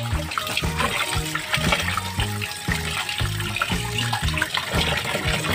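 A running kitchen tap pours water into a basin while raw beef chunks are rubbed and rinsed by hand, with splashing. Background music with a steady bass beat plays over it.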